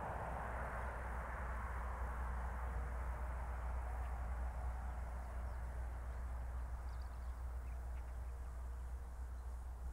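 Distant aircraft engine noise: a steady low drone under a broad hiss that slowly fades, with a few faint bird chirps near the end.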